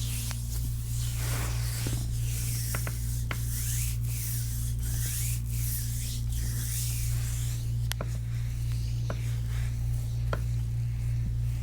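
Hands rubbing and stroking along a bare foot during a massage: swishing friction strokes about a second apart, with a few sharp clicks scattered through, over a steady low hum.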